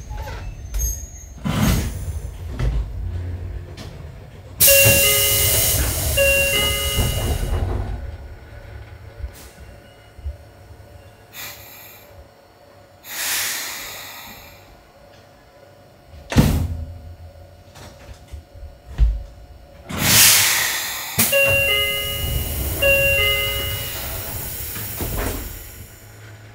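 Hakone Tozan Railway train's door chimes: a repeated multi-note chime sounds twice, about five seconds in and again about twenty seconds in, each time with a loud hiss of air as the pneumatic doors work. Single thumps are heard in between.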